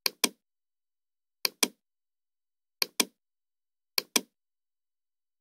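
Computer mouse clicking: four pairs of sharp clicks about a second and a quarter apart, the two clicks in each pair a fifth of a second apart.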